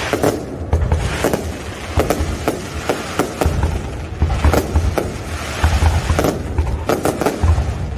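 Fireworks bursting in quick, irregular succession: a string of sharp bangs and cracks over a continuous low rumble.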